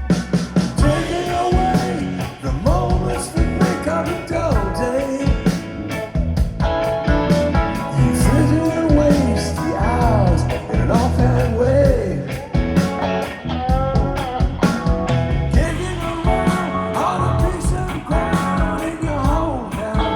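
A rock song with a singing voice, drums, bass and guitar, played back through hi-fi loudspeakers and picked up by a microphone in the room.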